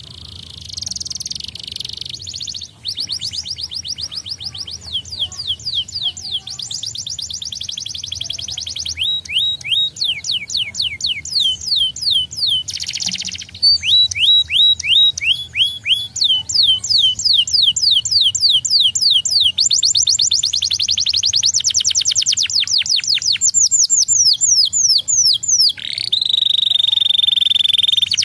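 Domestic canary singing: fast trills of repeated short chirping notes, switching to a new phrase every second or two, with a long held whistle near the end.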